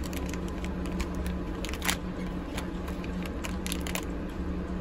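Thin plastic cling film crinkling and crackling in quick irregular bursts as it is peeled off a plastic takeaway food tray, the loudest crackle just before two seconds in. Underneath runs the steady low rumble of a moving train.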